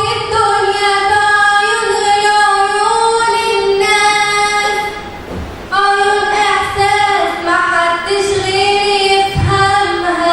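A girl singing long, held notes in two phrases, with a short break about five seconds in.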